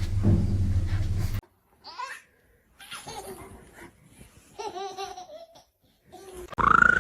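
A low steady rumble that stops suddenly about a second and a half in. Then comes a series of short, high-pitched laughing voice sounds, ending in a loud rising squeal.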